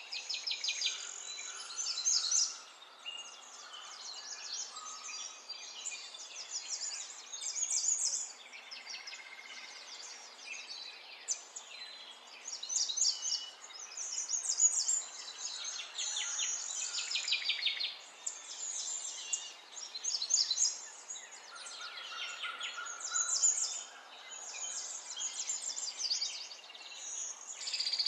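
Small songbirds chirping and trilling in quick runs of high notes, phrase after phrase with short gaps between.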